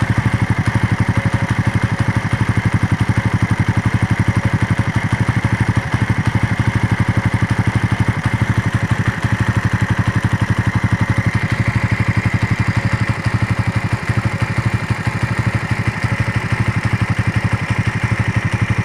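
Suzuki Raider motorcycle engine idling steadily with an even, rapid beat, hot after a long ride; a higher part of the sound lifts slightly in pitch about eleven seconds in.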